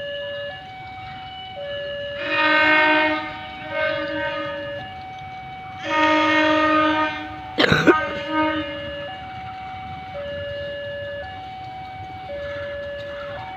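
Diesel locomotive horn sounding as the train approaches: a blast about two seconds in, a weaker short one soon after, and a longer blast about six seconds in. A steady two-tone warning alarm runs underneath, switching between a high and a low note about once a second. There is a sharp crack just before eight seconds.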